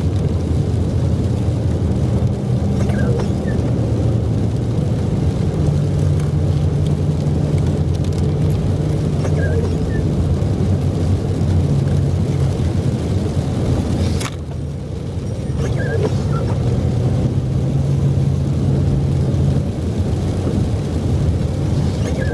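Car engine and road noise during a drive, a steady low drone. A sharp click about fourteen seconds in is followed by a brief lull before the drone returns.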